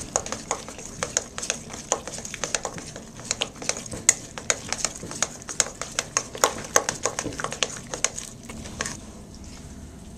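Stirring utensil clinking and scraping against a stainless steel mixing bowl while working a stiff peanut butter mixture, in quick irregular clicks several times a second that stop about a second before the end.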